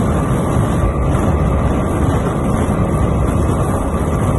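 Honda XR 250 Tornado's single-cylinder four-stroke engine running steadily at top speed, above 140 km/h, with heavy wind rushing over the microphone.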